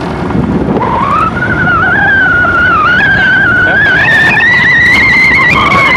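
The NetGain HyPer 9 AC electric motor of an electric Jeep whines as the Jeep accelerates. Its pitch rises steadily from about a second in, then drops suddenly near the end. Wind rushes over the microphone underneath.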